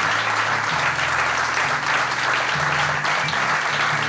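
Audience of several dozen people applauding steadily, with background music of low held notes underneath.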